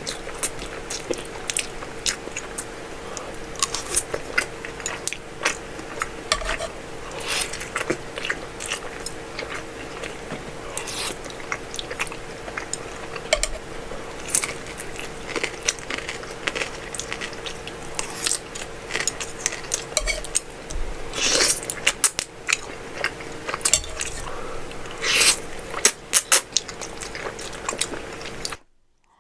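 Close-miked eating of Buldak spicy noodles: wet chewing and biting with many sharp clicks of utensils against the bowl, over a faint steady hum. Everything cuts off abruptly near the end.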